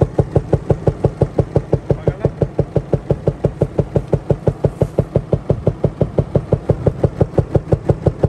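Cummins 6.7 24-valve inline-six diesel idling with a loud, very regular knock, about five to six a second. The knock is the sign of a valve bridge (crosshead) knocked loose in the head after the valves went out of adjustment, on an engine near 500,000 miles that has never had its valves adjusted.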